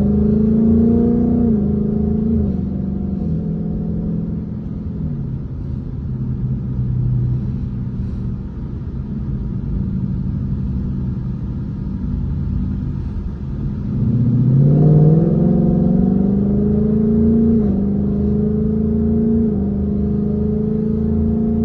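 Ford Mustang engine heard from inside the cabin while driving. It pulls up in pitch at first, eases off and runs lower for several seconds, then accelerates again sharply about two-thirds of the way through, with a couple of brief drops in pitch.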